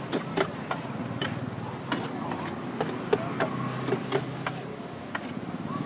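Metal spatula clicking and scraping against a large steel wok as fried noodles are stir-fried, in irregular knocks a few times a second over a low steady hum.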